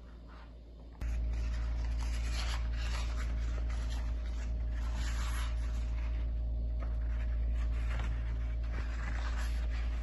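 Paper towel rustling and rubbing as a sheet is handled, over a steady low hum that starts abruptly about a second in.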